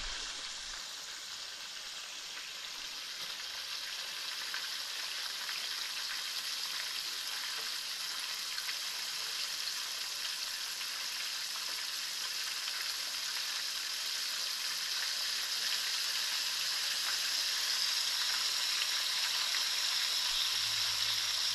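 Flour-dredged whole capelin frying in hot oil in a pan: a steady sizzle that slowly grows louder.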